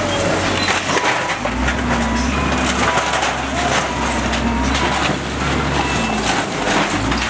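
Lovol wheel loader's bucket crushing a brick and corrugated-iron shack: irregular crashing and cracking of breaking walls and sheet metal over the machine's steady low diesel engine hum.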